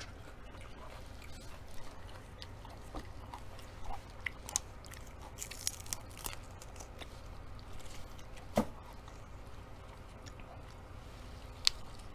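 A person chewing and biting food close to the microphone, with scattered crisp crunches and small mouth clicks. There is a sharper snap about two-thirds of the way in and another near the end, over a low steady hum.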